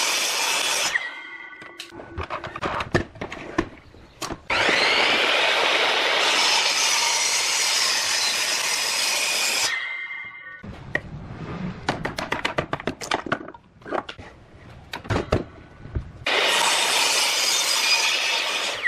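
Electric miter saw cutting a pine board in three passes, making shallow cuts across its face. Each pass starts with the motor's rising whine and the blade cutting steadily, then the motor winds down with a fading ring, and the board is knocked and shifted on the saw table between passes.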